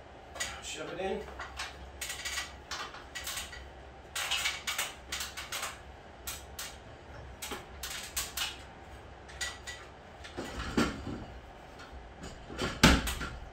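Irregular sharp knocks and light metallic clatter of footsteps and handling on an aluminium ladder, with one louder thump about a second before the end.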